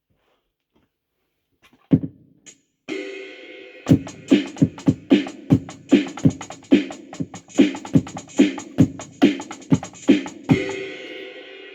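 Electronic music: a single drum hit, then a held synth chord joined by a run of drum-machine hits that stop near the end, leaving the chord to fade.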